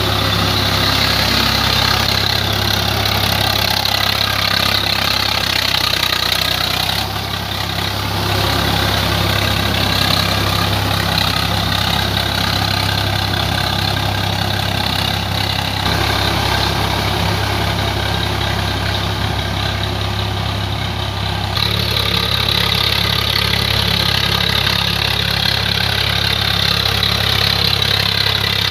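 Swaraj 855 FE tractor's three-cylinder diesel engine running steadily while it drives a rotavator through wet soil. The sound changes abruptly about a quarter of the way in, about halfway, and again about three-quarters of the way through.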